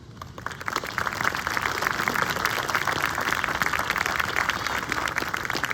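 Audience applauding, a dense patter of many hands clapping that swells within the first second and tails off near the end.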